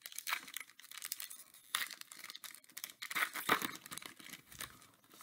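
Foil wrapper of a Donruss football card pack crinkling and tearing as it is pulled open by hand: an irregular crackle, with louder bursts about two seconds and three and a half seconds in.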